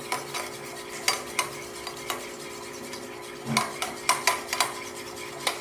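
A utensil stirring a sticky slime mixture of glue and liquid soap in a container, with repeated clicks and scrapes against the container's sides. The strokes come faster in the second half.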